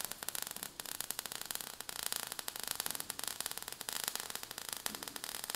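Sound effect of falling sparks: a faint, dense crackling fizz of many tiny clicks.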